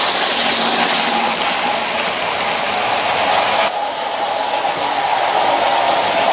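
Model Pendolino train running on the layout track: a steady electric-motor whir with wheel rumble. The sound changes abruptly a little over halfway through, losing some of its hiss.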